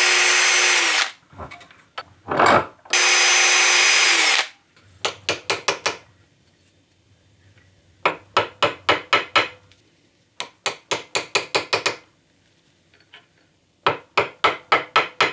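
Small electric drill running and spinning down, twice, as it drills out the cast-over rivet points on a potentiometer's metal frame. Then come runs of quick metal taps, five or six a second, as small hollow rivets are set with a punch.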